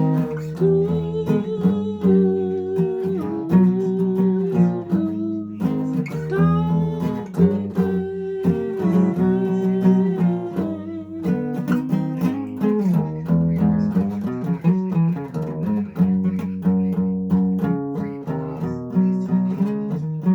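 Acoustic guitar playing, chords strummed and picked in an instrumental passage with no singing.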